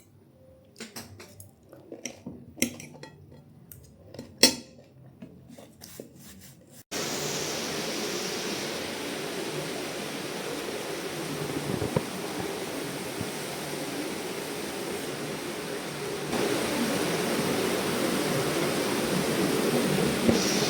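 Cutlery and dishes clinking now and then while eating a meal. About seven seconds in, this cuts off and a steady rushing noise takes over, growing louder about sixteen seconds in.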